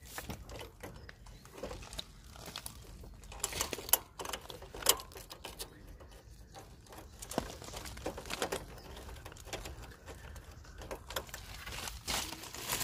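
Irregular small clicks and metal knocks as hands work the bolt into the lower mount of a scooter's rear shock absorber, with two sharper knocks about four and five seconds in.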